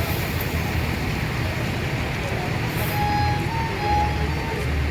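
Steady low rumble of bus engines and road traffic. About three seconds in, a few faint high notes sound briefly, stepping in pitch like a short melody.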